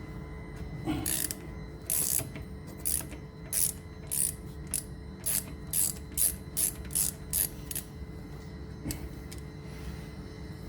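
Socket ratchet clicking as it undoes a 12 mm brake caliper guide bolt: about a dozen short bursts of clicks over some seven seconds, coming faster toward the end, then a single click.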